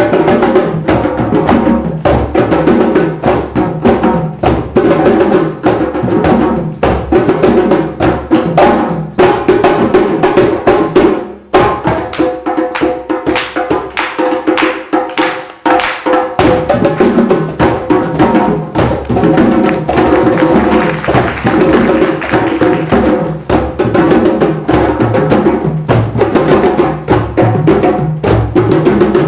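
A group of drummers playing together in a fast, steady rhythm of many strikes. Around the middle the deep drums drop out for a few seconds while the higher drums carry on, then the full group comes back in.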